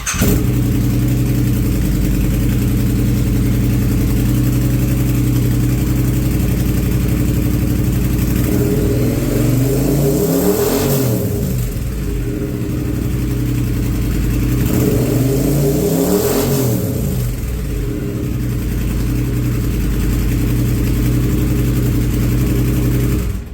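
Triumph Speed Twin 900's parallel-twin engine idling through its stock exhaust with the catalytic converter removed, revved up and back down twice.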